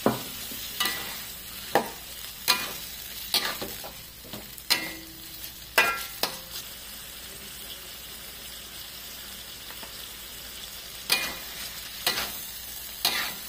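Metal spatula scraping and knocking against a wok while stirring chicken pieces frying in soy sauce, over a steady sizzle. The strokes come about once a second for the first six seconds, pause for about four seconds, then resume near the end.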